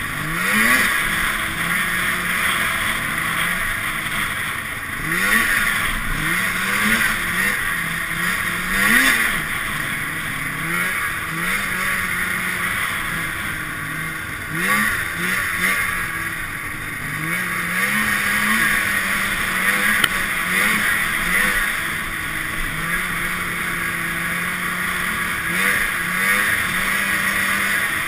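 Arctic Cat Sno Pro snowmobile's two-stroke engine under way, its pitch rising and falling again and again as the throttle is worked, over a steady rushing noise.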